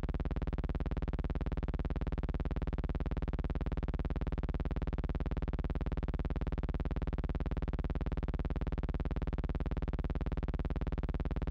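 A steady, unchanging buzzing hum with a stack of even overtones, the same level throughout.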